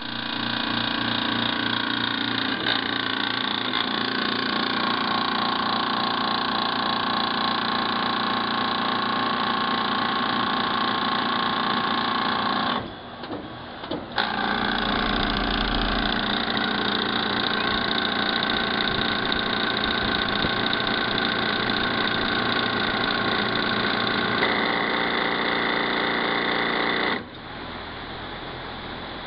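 Air conditioner buzzing: a loud, steady hum with many overtones. It cuts out briefly about 13 seconds in, comes back, and drops to a quieter level near the end.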